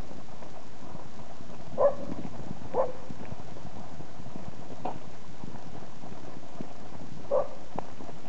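A dog barking: four short barks spaced irregularly over several seconds, over steady background noise.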